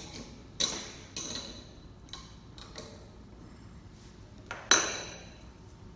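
Sharp metallic clinks of hand tools working a metal clamp tight around a valve body. About six strikes, each with a brief ring; the loudest comes near the end.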